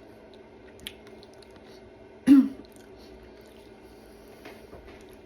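A person clears her throat once, briefly and sharply, a little over two seconds in. There is a faint click about a second in, over a steady low hum.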